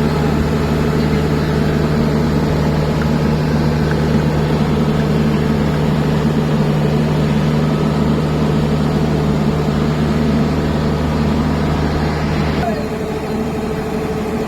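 Diesel engine of farm machinery running steadily; near the end its note changes abruptly, the low hum dropping away and a higher tone taking over.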